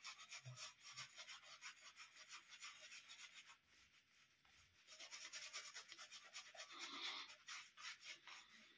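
Shaving brush being worked against hard shaving soap to build lather: faint, quick, hissy bristle-scrubbing strokes, with a brief lull about halfway through.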